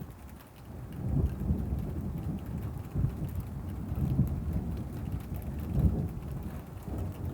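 Thunder rolling and rumbling low. It swells about a second in and surges several times, over faint rain.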